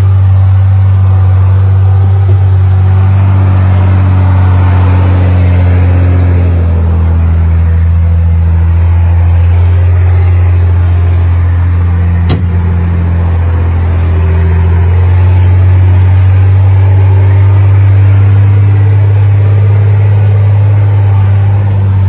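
Unimog 1250L's six-cylinder Mercedes diesel engine running steadily under load as the truck crawls up a steep rock climb, heard from inside the cab as a loud, even low drone. A single sharp click sounds about twelve seconds in.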